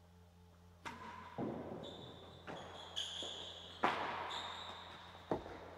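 A real tennis rally: the solid ball knocked back and forth by rackets and striking the court's walls and floor. About six sharp knocks come one to one and a half seconds apart, starting about a second in, each echoing in the hard-walled court with a high ringing tone between hits.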